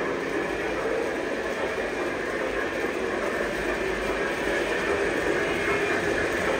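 Lionel O-gauge model train running steadily along its track.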